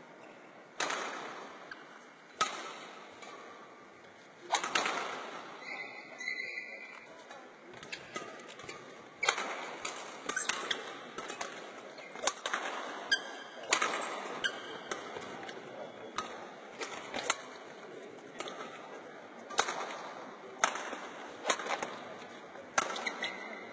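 Badminton racket strikes on a shuttlecock during a training drill: sharp, irregular cracks about one every second or so, each trailing off in the hall's echo.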